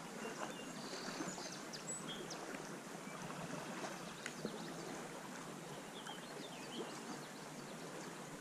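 Shallow creek water running steadily over sandy riffles, with a few faint bird chirps.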